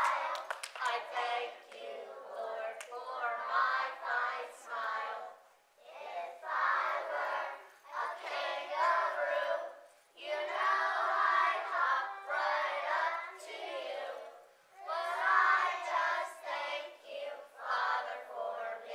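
A group of young children singing a song together, in phrases a few seconds long with short breaks between them.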